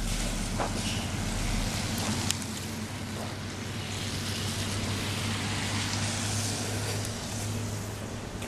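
Heavy road-construction equipment engines running with a steady drone; a deeper rumble drops away about a second and a half in.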